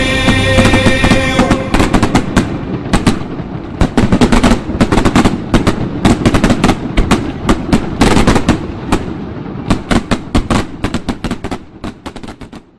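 Fireworks going off in an irregular run of sharp bangs and crackles, with quick clusters of reports, growing fainter and dying away near the end. The music ends about two seconds in.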